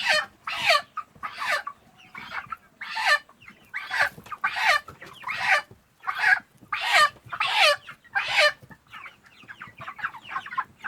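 A broiler chicken squawking loudly about a dozen times, roughly one harsh call every second, the distress calls of a bird being handled and weighed; the calls stop a couple of seconds before the end. Underneath, a flock of young broilers chirps and clucks steadily.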